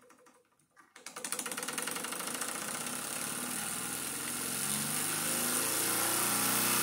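Wilesco D24 live steam engine starting up after about a second of quiet, its quick exhaust beats speeding up and growing louder as it gathers speed.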